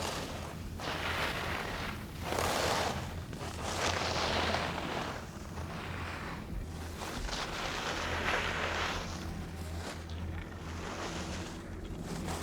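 Skis carving on snow through a run of turns: a hissing swoosh that swells and fades with each turn, every second or two, over a steady low hum.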